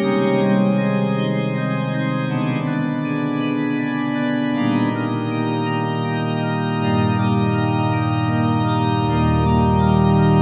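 Music of sustained organ chords, each held for about two seconds before moving to the next.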